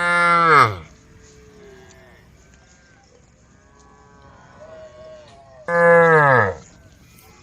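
Cows mooing: two loud moos, each dropping in pitch as it ends, one at the start and another about six seconds in, with fainter moos from other cattle in between.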